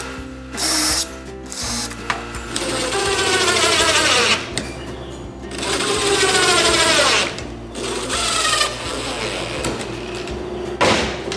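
Cordless impact driver driving screws through a wooden yardstick into a stake. It comes in a few short bursts, then three longer runs whose pitch drops as each screw seats.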